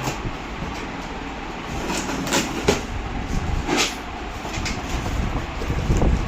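A cardboard box being handled and opened: cardboard scraping and packing rustling, with a few sharp scrapes about two to four seconds in, over a steady low rumble.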